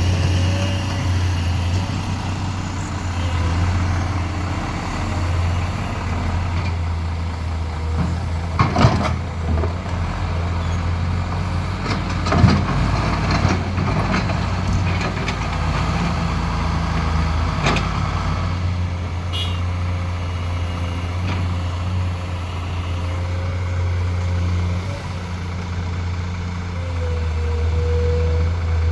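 Komatsu PC210 hydraulic excavator's diesel engine running steadily with a low hum and a faint whine while loading sand, broken by a few sharp knocks and rattles about a third of the way in, near the middle and again a little later.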